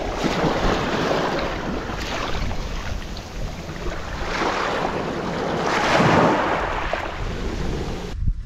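Small waves washing in over wet sand and seaweed at the water's edge, surging and ebbing several times, loudest about six seconds in, with wind rumbling on the microphone.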